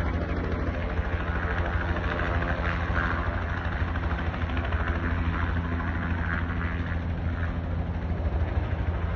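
Firefighting air tanker's engines droning steadily as the plane approaches, a low even hum with some hiss over it.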